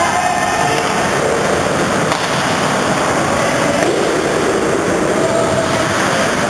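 Ice rink ambience during a hockey game: a steady wash of noise from skates on the ice and the arena, with faint distant voices.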